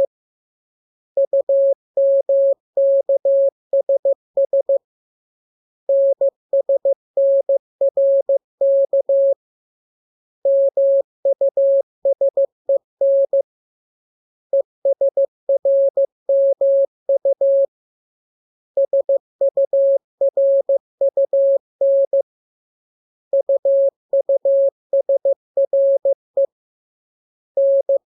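Morse code (CW) practice tone: a single steady beep keyed on and off in dots and dashes, sent as groups of characters from the letters K, M, U, R, E, S and N, with a pause of about a second between groups.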